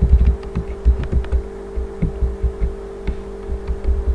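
Computer keyboard being typed on: irregular key clicks, each with a dull low thump, over a steady electrical hum.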